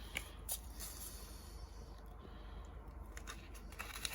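Faint rustling and a few light clicks from a paper seed packet being handled as the small carrot seeds are worked out of it, with a low steady hum underneath.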